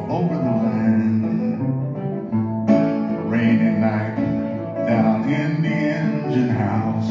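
A man singing to a 1930 National Style O resonator guitar, the metal-bodied guitar picked steadily under his voice.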